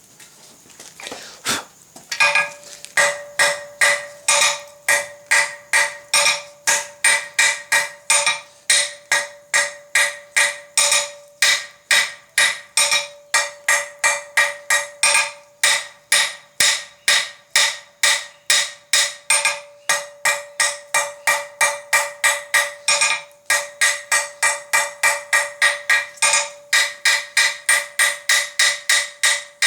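Hand hammer striking a flat bar on an anvil at an even pace, about three blows a second, drawing out a taper. The anvil rings with a steady tone under the blows, which start in earnest about two seconds in.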